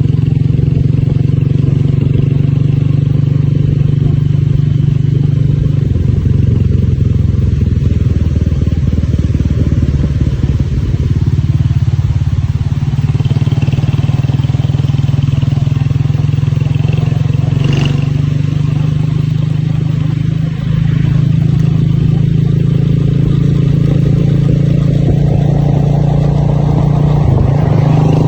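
A vehicle engine running steadily, with an even drone that holds through the whole stretch.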